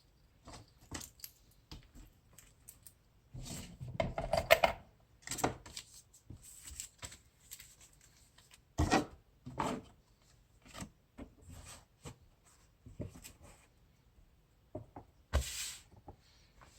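Handling noises: a string of irregular clicks, taps and rustles as a watch and its packaging are handled, with the busiest stretch about four seconds in and louder knocks around nine seconds and near the end.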